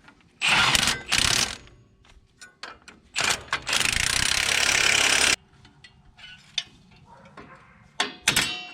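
Pneumatic wrench running in bursts, two short ones, then a steady run of about two seconds, then a short one near the end, as it drives the fasteners home.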